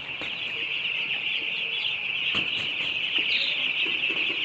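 A flock of young broiler chickens in a poultry shed, many birds peeping and chirping at once in a steady, high-pitched chorus.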